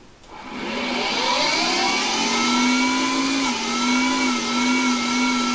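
Small Hercus CNC lathe spindle spinning a brass bar up to 3000 rpm: a whine that rises in pitch over the first couple of seconds, then holds with a slight dip and wavering about three and a half seconds in before steadying. The wavering is the spindle hunting for a constant speed and settling during the dwell programmed before threading.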